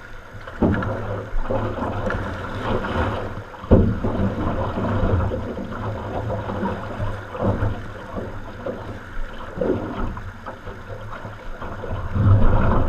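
Rushing Class II whitewater around an aluminum Grumman canoe, with a handful of sudden hits of water and paddle against the hull, the loudest about four seconds in.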